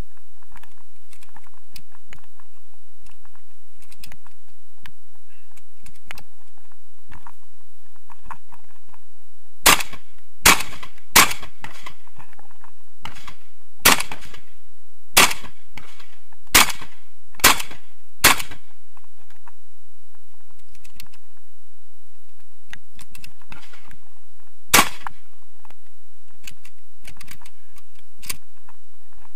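Shotgun fired close by, nine shots in all. Three come in quick succession about ten seconds in, five more follow at roughly one-second spacing, and a lone shot comes later. Faint clicks and rustling of handling and moving lie between the shots.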